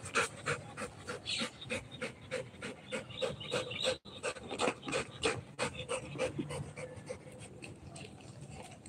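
Rottweiler panting rapidly, about four pants a second, growing fainter in the second half.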